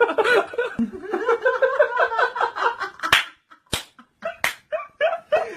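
A group of people laughing hard for about three seconds, then three sharp smacks spread over about a second and a half, followed by a few shorter laughs.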